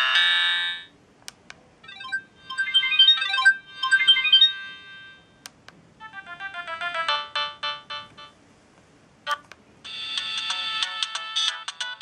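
Siemens A31 mobile phone playing its built-in ringtone melodies one after another, each cut off after a few seconds before the next begins. Single sharp clicks fall in the short gaps between them.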